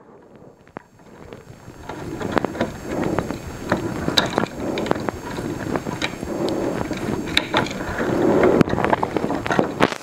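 Rustling and scattered small clicks from hands working a wire loop under a terminal screw on an electrical outlet. The noise starts about a second in and slowly grows louder.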